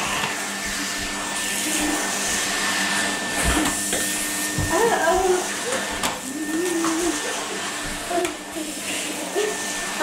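Numatic canister vacuum cleaner running steadily with a high motor whine as its floor tool is pushed over carpet, with a few low knocks partway through.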